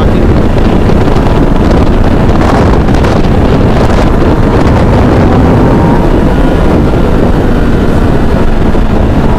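Heavy wind rush buffeting the microphone on a Kawasaki ZX-10R ridden at about 120–130 km/h, with the bike's inline-four engine running steadily underneath.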